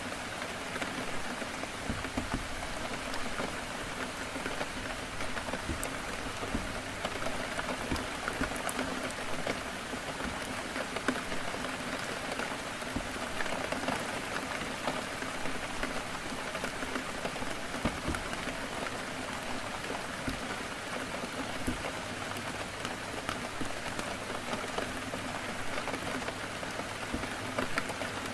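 Heavy rain falling steadily against a window, many drops ticking on the glass.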